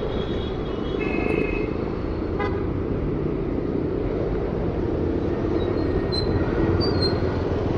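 Motorcycle riding on the road: steady engine, wind and road noise, with a brief horn toot about a second in.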